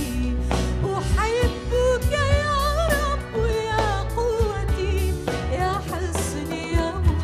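Arabic Christian hymn: a woman singing a melody with vibrato over band accompaniment with a heavy steady bass.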